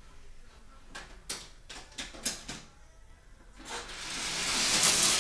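A few light clicks, then a die-cast Hot Wheels car rolling down an orange plastic track, its wheel noise a rush that grows steadily louder over the last second and a half.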